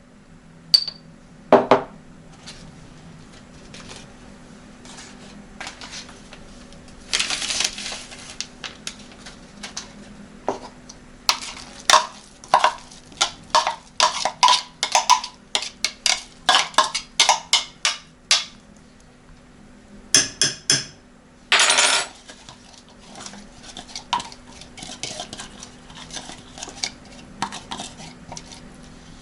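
Kitchen dishes and cutlery clattering: irregular clinks and knocks of utensils against crockery, busiest through the middle. There are two short hissing noises, one about a quarter of the way in and one about three quarters in, over a faint steady low hum.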